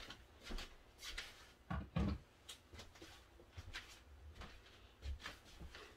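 Faint knocks, clicks and rustling of objects being handled and set down, with one louder, dull thump about two seconds in.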